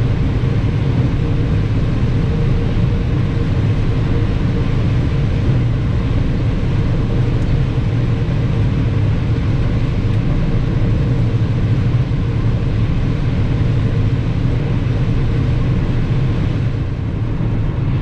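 Combine harvester running steadily while shelling corn: a constant low drone with a steady hum above it.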